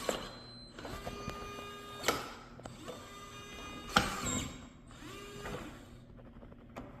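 Teeho smart lock's deadbolt motor whirring in three short runs of about a second each, each ending with a sharp click as the bolt reaches its stop.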